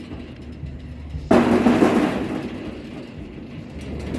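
A single sudden heavy bang about a second in, ringing on and dying away slowly over a couple of seconds. At the start, the fading ring of an earlier bang is still heard.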